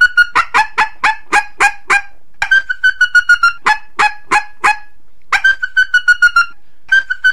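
Female coyote estrus chirps, the mating-season call of a female in heat: quick, high chirps about three a second in series of four to eight, with short pauses between the series.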